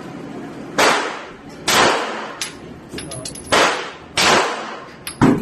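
Glock 17 Gen 4 9mm pistol firing five single shots at uneven spacing of about a second, each with a short ringing tail, with lighter clicks between the shots.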